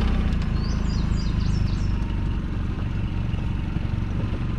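Boat's outboard motor idling steadily, with a bird chirping a quick run of short, high notes from about half a second to two seconds in.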